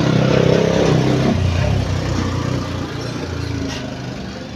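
Suzuki Access 125 scooter's single-cylinder four-stroke engine running on the throttle, then dropping in pitch about a second and a half in and getting gradually quieter as the revs come down.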